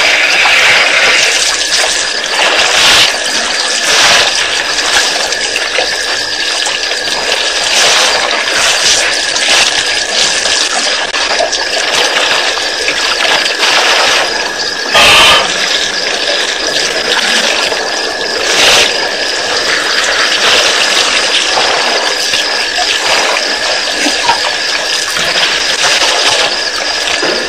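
Water splashing and sloshing as elephants drink at a waterhole, over a steady hiss, with a few louder splashes scattered through.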